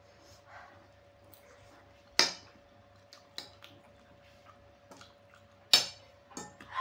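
Metal fork and spoon clinking and scraping on a ceramic plate while gathering noodles, with two sharp loud clinks, about two seconds in and near the end, and lighter taps between.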